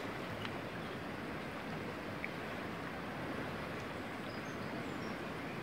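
A river's current flowing over a shallow, riffled run, a steady rush of water with no breaks.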